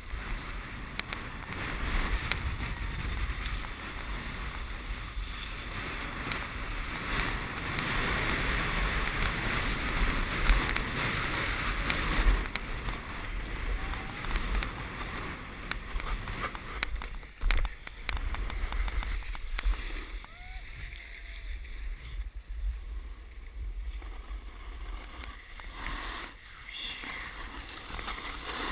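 Snowboard sliding and scraping over packed snow on a descent, with wind rushing over the camera microphone. It is louder and rougher for most of the run, with a couple of sharp scrapes, and eases off after about twenty seconds.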